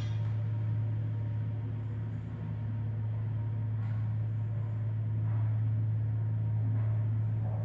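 ThyssenKrupp traction elevator's hoist machine running with a steady low hum as the glass car descends.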